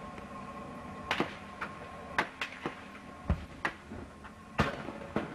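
Scattered gunfire: irregular sharp single reports, about nine over five seconds, with one deeper, heavier report about three seconds in.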